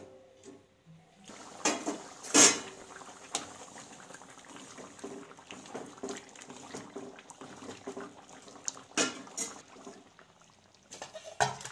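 A steel pot lid clanks twice as it is lifted off, then bitter gourd curry bubbles while a metal spoon stirs and scrapes the steel pot. There is another metal knock about nine seconds in.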